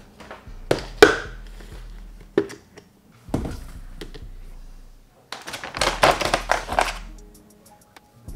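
Plastic supplement tubs and a ceramic mug being set down on a granite countertop: a few sharp knocks, the loudest about a second in. Then, for over a second, a dense clatter of clicks and rattling as the tubs are handled and a lid is taken off.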